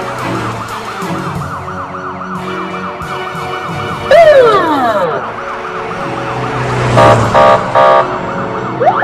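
Police car siren wailing in a fast, repeating up-and-down cycle. About four seconds in, a loud tone sweeps steeply downward, and a few short loud hits follow near the end.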